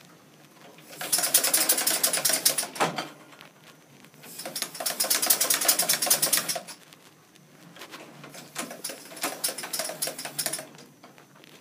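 Tom Thumb locomotive's cylinders running on compressed air on a bench test, driving the quartered axles and side rods: three bursts of rapid, even exhaust beats, each about two and a half seconds long, with short pauses between. A sharp click comes near three seconds in.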